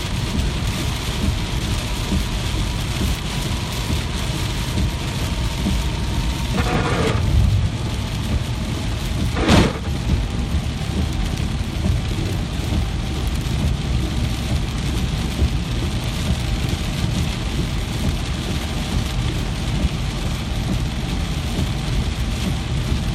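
Steady rain falling, an even hiss throughout. A brief low rumble comes about seven seconds in, and a single sharp crack comes just under ten seconds in.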